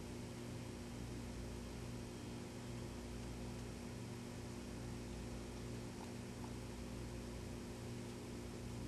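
Steady electrical hum with a hiss behind it, and a couple of faint ticks about six seconds in.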